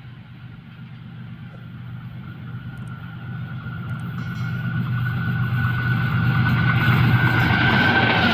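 GEU40 diesel-electric locomotive approaching at speed, its engine growing steadily louder with a steady high whine over a low rumble, reaching the microphone near the end.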